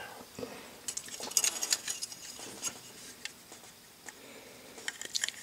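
Dry-fitted plastic model-kit parts clicking and tapping as they are handled, in scattered light clicks, a cluster in the first couple of seconds and another near the end.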